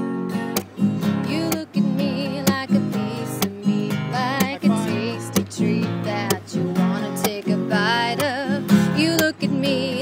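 Background music: an instrumental passage of a folk river song, with an acoustic guitar strumming a steady rhythm and a wavering melody line over it, without singing.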